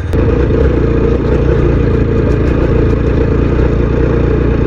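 TVS Apache motorcycle engine running steadily while riding a rough dirt track, a little louder from just after the start.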